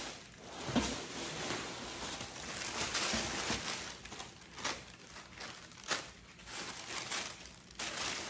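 Tissue paper rustling and crinkling as it is pulled from a cardboard box and bunched up, with a few sharper crackles.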